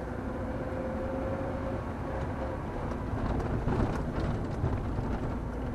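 Car driving along a road, heard from inside the cabin: steady engine and tyre rumble with a faint whine, and a few light knocks about three to four seconds in.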